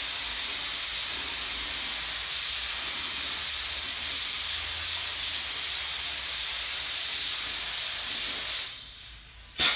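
Compressed-air gravity-feed paint spray gun hissing steadily as it sprays basecoat onto a fender, the hiss cutting off near the end. A single sharp clack follows just before the end.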